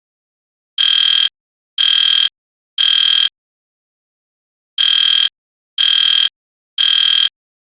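EST Genesis fire alarm horn sounding the temporal code-3 evacuation pattern: two sets of three high-pitched half-second blasts about a second apart, with a longer pause between the sets.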